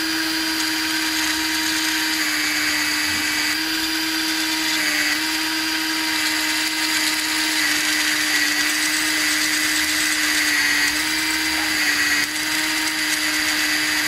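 Cordless drill running steadily, spinning an 8 mm threaded steel rod in a skate-bearing jig while a 5 mm drill bit, held still with pliers, reams a hole in the rod's end. The motor's steady whine dips slightly in pitch a few times as the load changes.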